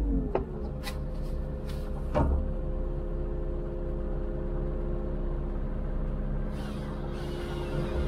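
Diesel engines of an excavator and a tracked wood chipper running steadily, their pitch settling after a short drop at the very start. A few sharp clicks and a knock come in the first two seconds or so.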